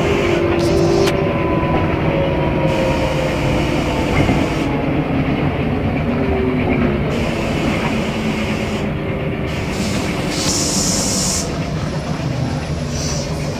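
Interior sound of a Mercedes-Benz O500MA articulated diesel bus under way: a steady engine and drivetrain drone with road noise, its tones sliding slowly down in pitch over the first several seconds as the bus eases off.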